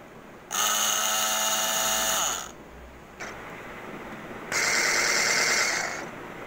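Electric 3-in-1 hand blender motor switched on in two short runs, each a high whine lasting about two seconds. The first run starts about half a second in; the second comes near the end with the whisk attachment fitted.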